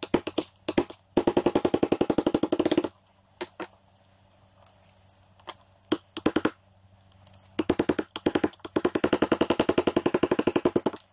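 Hammer striking a 3/16-inch pin punch, driving the roll pin out of a shift fork on its shifter rod in a Toyota W52 manual transmission: metal-on-metal taps in two long, rapid runs, with a few single taps between.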